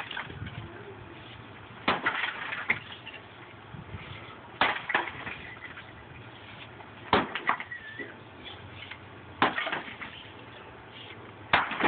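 Sledgehammer blows on a decorative lattice-pattern concrete block wall, five heavy strikes about every two and a half seconds. Each strike is followed by a short clatter of concrete chunks breaking off and falling.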